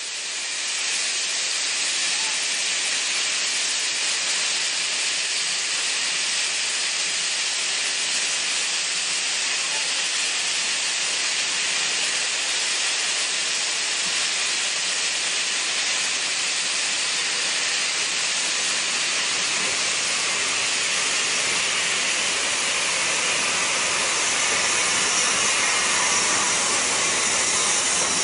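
Furness Railway No 20, an 1863 0-4-0 steam locomotive, hissing steam steadily and loudly, swelling slightly near the end.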